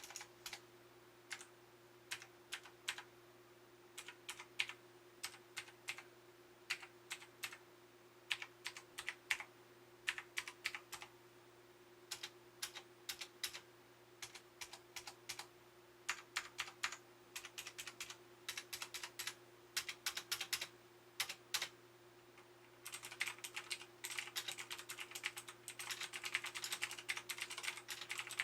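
Keystrokes on a RiZUM G-FACTOR Z10 mechanical keyboard: scattered single key presses and short runs, then fast continuous typing near the end. A faint steady hum lies underneath.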